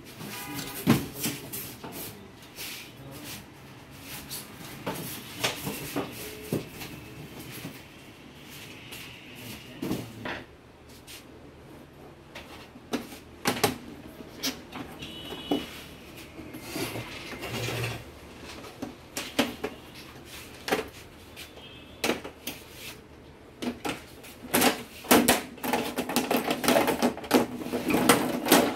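Irregular clicks, taps and clatter of plastic and metal parts being handled as an LED TV is taken apart for a backlight repair, growing busier near the end.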